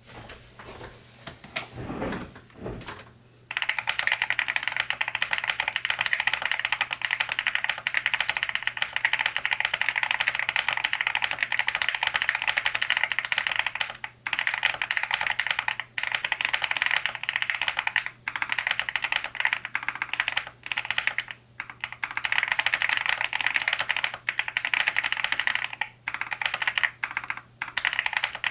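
Fast continuous typing on a Cidoo V65 V2 mechanical keyboard fitted with hand-lubed Akko V3 Cream Black Pro linear switches, lubed stabilizers, a tape mod and dye-sub keycaps. The typing starts about three and a half seconds in and breaks off briefly a few times.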